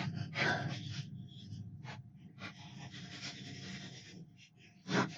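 Handling noise of PlayStation 4 parts being fitted back together: rustling and scraping, with a sharp click about two seconds in and a louder one near the end.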